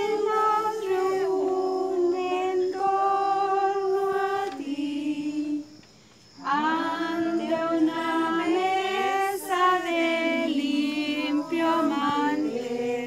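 A group of voices singing a Christmas song in Spanish without accompaniment, in two phrases with a short breath pause about five seconds in.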